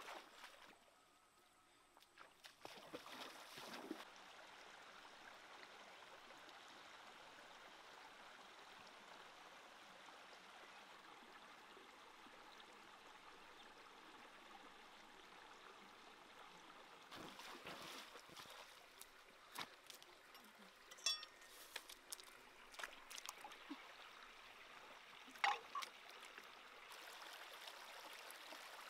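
Faint creek water running and trickling over rocks, steady throughout, with a few short clicks and taps in the second half.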